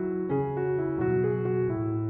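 Background piano music: a gentle melody over held chords, with a new note roughly every half second.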